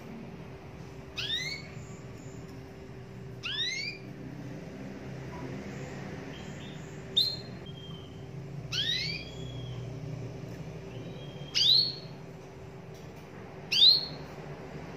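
Domestic canary giving short, upward-sweeping chirps, six in all, one every two seconds or so, over a faint steady hum.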